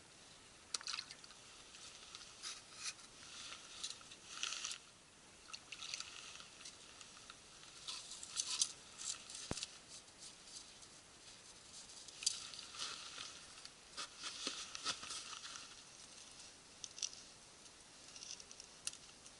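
Irregular crunches, scrapes and clicks of ice and packed snow as icicles are broken up and gathered into a pot, to be melted for drinking water.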